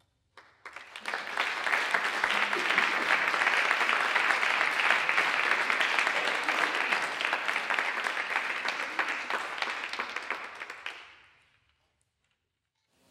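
Audience applauding: it starts about half a second in, swells quickly, holds steady, then dies away about a second and a half before the end.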